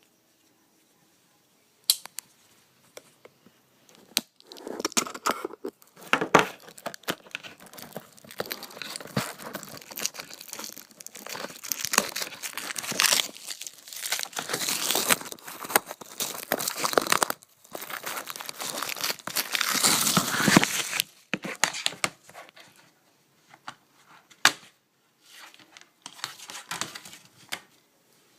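Plastic shrink-wrap being torn and peeled off a Blu-ray case, crinkling and crackling for most of the time, with sparser clicks and crackles near the end.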